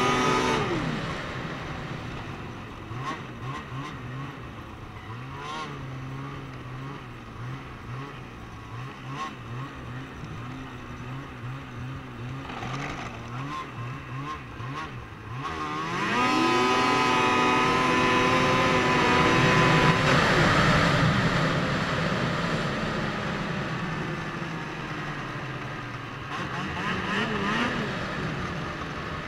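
Ski-Doo 500SS snowmobile's two-stroke twin engine. It winds down in the first second or two, then runs at low, wavering revs. About halfway through it revs up sharply in a launch and holds high revs for several seconds before easing off, with one short blip of revs near the end.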